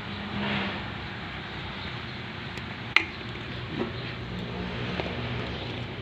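Hands fitting a new, stiffer spring into a washing machine's drain valve, which was not closing: handling noise with one sharp click about three seconds in and two softer knocks after, over a steady low background hum.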